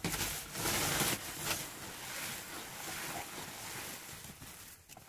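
A woven plastic sack rustling and crinkling as hands handle and fold it, loudest in the first second and a half.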